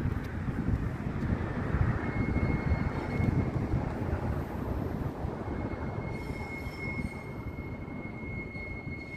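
CAF Urbos tram approaching slowly along street track, a thin steady high squeal from its wheels on the rail starting about two seconds in, over a low rumbling noise that slowly fades.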